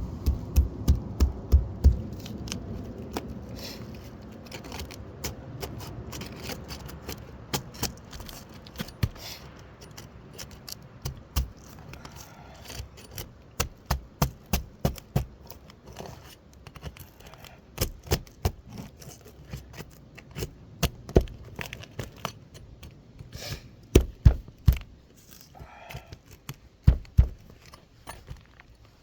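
Hammer striking a flat bar driven under asphalt roof shingles, in short runs of sharp taps with scraping as the bar breaks the shingle's seal. A low rumble fades out over the first few seconds.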